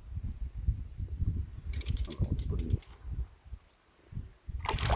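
Fishing reel clicking in a quick run about two seconds in, with one more click later, as a hooked trout is played. A low wind rumble on the microphone runs under it.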